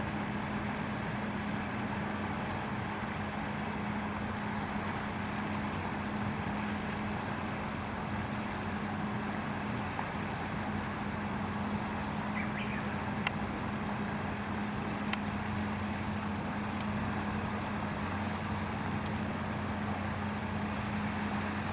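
Steady low mechanical hum over a constant wash of background noise, with a few faint clicks in the second half.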